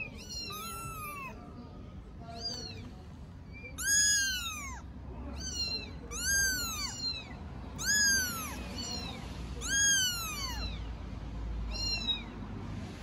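Four-week-old kitten meows, repeated about once a second: short high calls that rise and then fall in pitch, a few of them louder than the rest.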